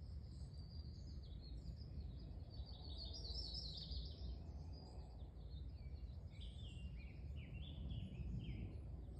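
Several songbirds singing in woodland: a jumble of quick high chirps in the first half, then a run of short, repeated falling notes in the second half, over a steady low background rumble.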